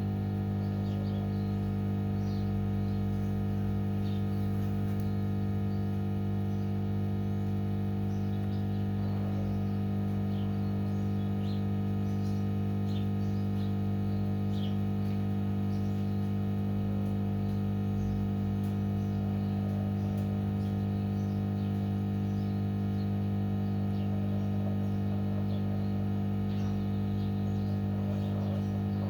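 Steady electrical hum with a stack of evenly spaced overtones, unchanging throughout, with faint short chirps scattered over it.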